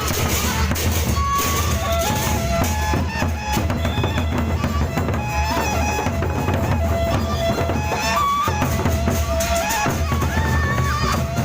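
Gendang beleq ensemble playing: big Sasak drums beating steadily under a melody line of held and gliding notes.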